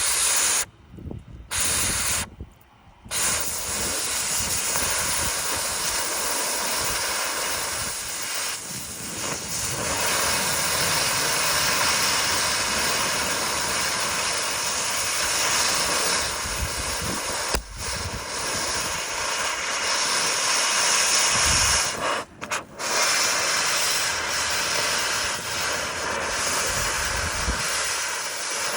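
Oxy-acetylene cutting torch hissing steadily as it cuts through a steel mobile home frame. The hiss breaks off briefly twice in the first few seconds and once more about twenty-two seconds in.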